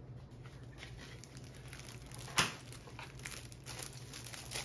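Clear plastic bag crinkling softly as it is handled, with one sharper, louder crackle about halfway through.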